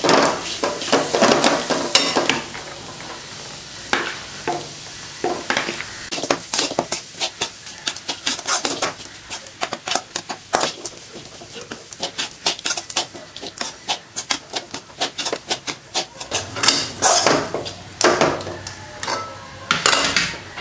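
Metal spatula scraping and clinking against a metal kadai as cooked rice is stirred and mixed into sautéed shredded cabbage. Irregular scrapes and knocks come several a second, in spells with short pauses.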